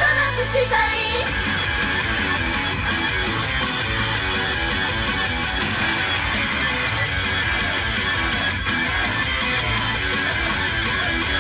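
Loud heavy rock music in an instrumental passage: distorted electric guitar riffing over fast bass and drums, with the sung line ending about a second in.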